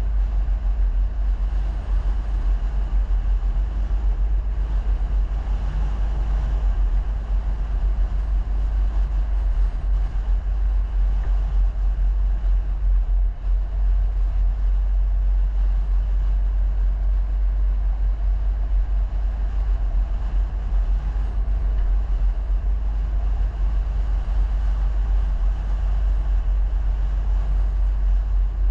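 Steady, loud low rumble of a vehicle on the move, with no distinct events.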